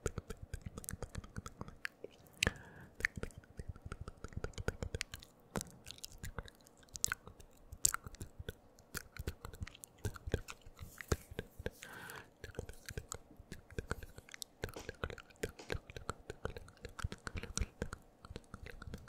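Wet mouth sounds right up against a microphone: rapid tongue clicks and lip smacks, several a second, with a couple of brief, inaudible whispers.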